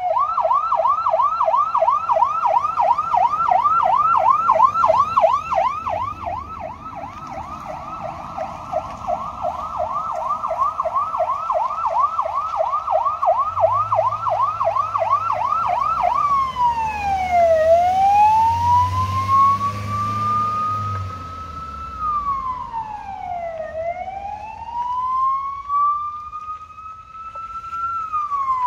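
PA300 Silverface electronic siren sounding through its speaker: a fast yelp sweeping about four times a second, which about halfway through switches to a slow wail that rises over several seconds and drops more quickly.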